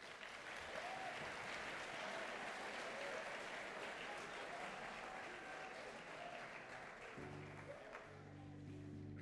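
A hall audience applauding steadily, easing off near the end. Soft background music with held low chords starts about seven seconds in.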